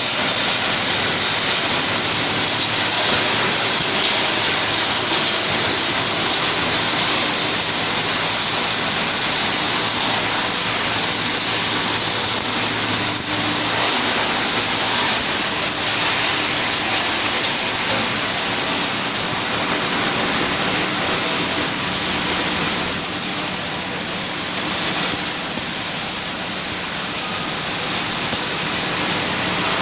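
Circuit-board recycling machinery running: a steady, dense rushing noise with a faint low hum underneath.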